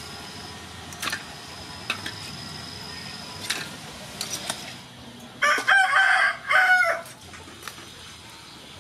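A rooster crowing once, a loud call about a second and a half long, a little past the middle. Before it there are a few light clicks and knocks.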